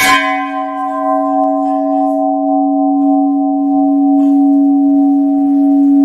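A 101 kg brass temple bell (ghanta) struck once, then ringing on in a long, steady hum: a strong low tone with a few higher tones above it, the bright upper overtones dying away within about two seconds while the low tones keep sounding.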